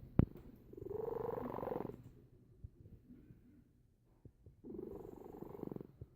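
Sleeping domestic cat snoring: two long, fluttering snoring breaths, each about a second long and a few seconds apart. A short sharp click comes just after the start.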